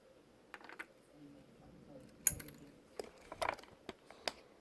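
Scattered light clicks and clacks of small hard pieces being handled, about five of them, the loudest a little over two seconds in.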